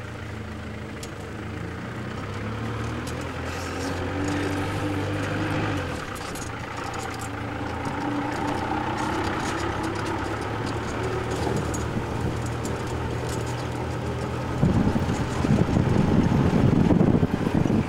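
A motor vehicle's engine running as it pulls away and drives, its pitch shifting about six seconds in. A louder, rougher low rumble starts about three seconds before the end.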